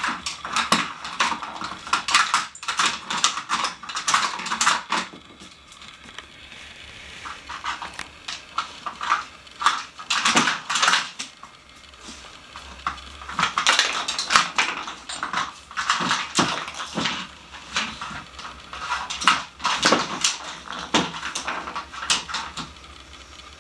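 A dog nosing through a plastic treat puzzle: hard plastic pieces clattering and knocking against the board and the wooden floor, in bursts with quieter stretches about six seconds in and again about twelve seconds in.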